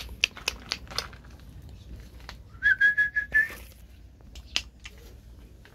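A person whistles one steady note about a second long, starting a little over two and a half seconds in, after a few short clicks and knocks of handling or footsteps.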